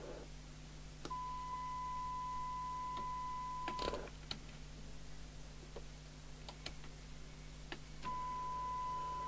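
A steady single-pitch test tone from the test set, heard through the CB radio's receiver, comes on about a second in and cuts off about four seconds in amid a quick cluster of clicks. A few single clicks follow, and the tone comes back about eight seconds in. The receiver hiss stops just as it begins.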